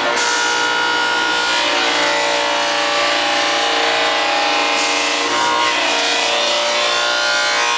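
Techno Isel CNC router running: a loud, steady whine of several tones over a hiss.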